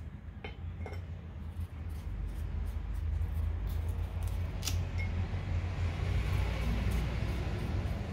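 A kitchen knife paring the skin off a zucchini: a rasping, scraping cut with a few light clicks of the blade. A steady low hum runs underneath.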